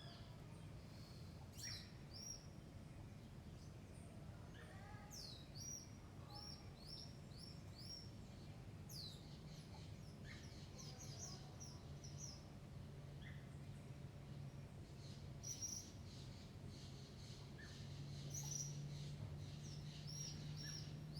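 Faint songbirds chirping in quick runs of short, high notes, over a low steady hum that grows a little stronger near the end.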